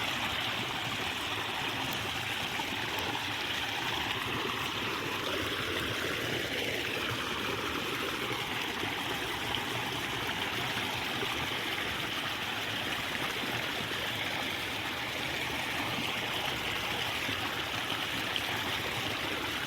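Steady rush of water flowing in a narrow rice-field irrigation ditch, an even, unchanging sound.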